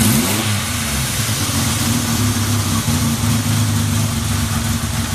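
Yamaha XS750 three-cylinder engine idling steadily after a quick throttle blip at the start. The idle is stable, with no abnormal noise.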